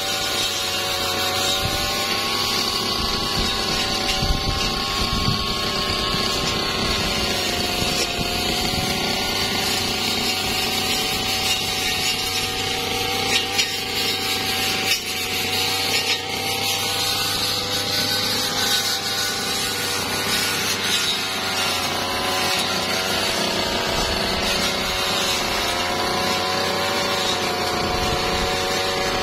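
Brush cutter engine running at high speed as its blade cuts through wood and twigs, its pitch sagging and recovering several times under the load, with a few sharp ticks from the cutting near the middle.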